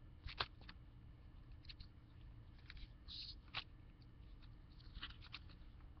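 Near silence with a low room hum and a few faint, scattered clicks and soft rustles from a paperback picture book being held and its page handled.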